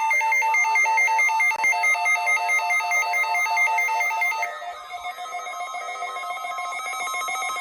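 Electronic alert tones: a loud, rapid two-pitch warble that trills like a phone ringer. About halfway through it drops a little in level and quick, repeating siren-like sweeps take over.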